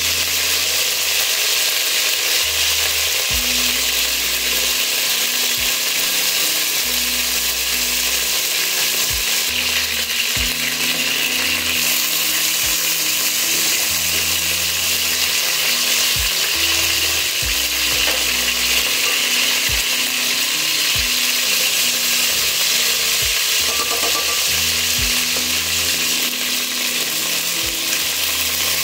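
Chicken thighs and wings frying in hot oil in an aluminium pot, a steady sizzle, with scattered clicks of metal tongs against the pot as the pieces are turned. The chicken is being browned only about halfway.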